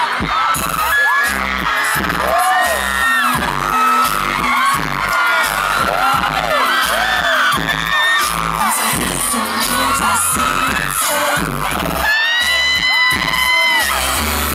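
Pop dance track with a heavy beat played loud over a concert sound system, with a crowd of fans screaming and shrieking over it. A long, loud held scream rises near the end.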